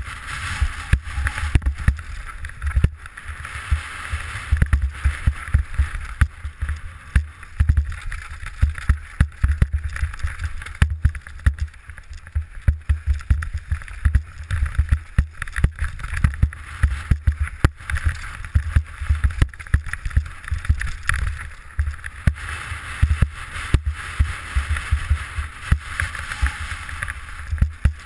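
Downhill mountain bike descending a rocky dirt trail, heard from a helmet camera: a constant rush of wind on the microphone with many irregular clunks and rattles as the bike hits rocks and bumps.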